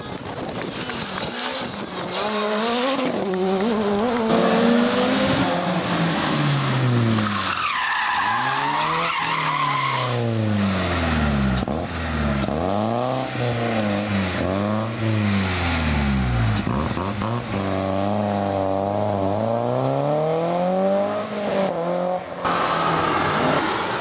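Rally car engines revving hard through the gears as the cars pass at stage speed, the pitch climbing and dropping again and again. A tyre squeal comes about eight seconds in.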